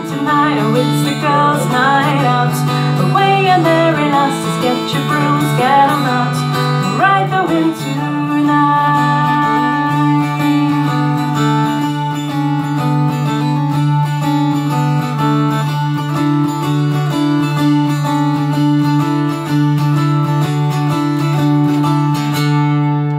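Appalachian mountain dulcimer played over a steady low drone as the outro of a folk song. A wordless wavering vocal line rides over it for about the first seven seconds, then the dulcimer plays on alone and stops just before the end.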